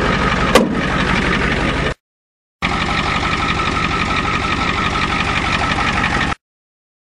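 Ford diesel truck engine idling steadily, run with no coolant in it, with one sharp click about half a second in. The sound cuts out to silence twice, briefly.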